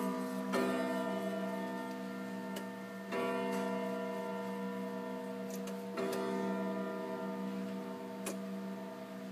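Grandfather clock striking the hour, set off by hand: three slow, ringing bongs about three seconds apart, each fading out, with the tail of an earlier bong dying away at the start. Faint ticks of the clock come in between.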